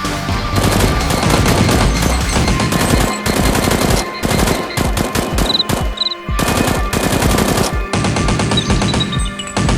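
Bursts of rapid automatic gunfire, the dubbed-in sound effects of a Nerf battle edited like a shooter game, several bursts in a row over background music.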